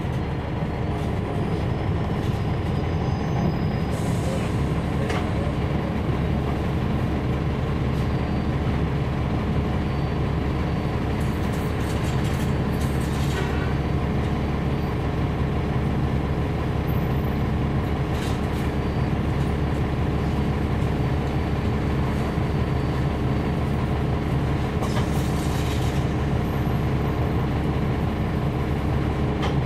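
Cummins ISL9 diesel engine of a NABI 40-SFW transit bus, heard from inside the bus, running steadily. A few brief hisses come through over it.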